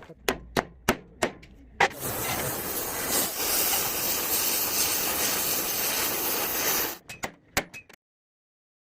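Workshop sounds: a run of sharp hammer knocks, about three a second, then a steady hiss of compressed air for about five seconds, and a few more knocks after it.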